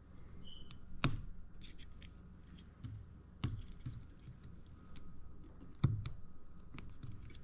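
Irregular light clicks and taps of small parts being handled as an FPV drone's video system is taken off, with three sharper knocks about one, three and a half and six seconds in.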